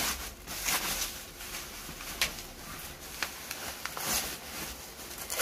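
Black plastic packaging rustling and crinkling as it is pulled off a cardboard tube, with a few sharp crackles.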